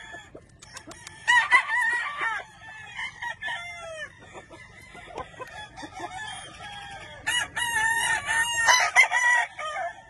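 Several gamefowl roosters crowing, the crows overlapping and coming one after another, with short clucks between. The loudest crows come about a second in and again from about seven seconds to nine and a half.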